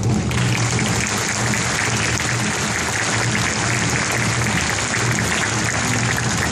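Audience applauding, starting suddenly less than half a second in and going on steadily, over a steady low hum.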